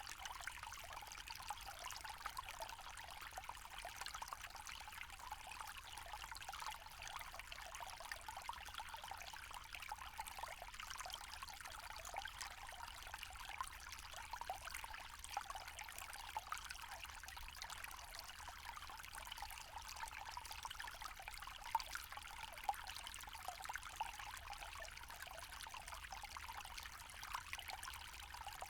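Small forest stream trickling and splashing steadily over stones, with a fine, bright patter and no deep rumble.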